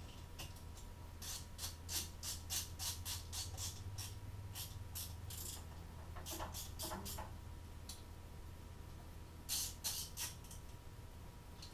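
Light metallic clicks and clinks of hand tools and parts as a dirt bike's carburetor is refitted: a quick run of clicks over the first few seconds, another cluster a little past the middle, and a few more near the end.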